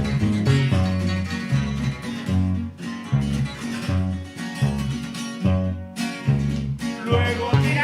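Norteño band playing an instrumental passage live: plucked strings over a bass line that bounces between notes in a steady beat.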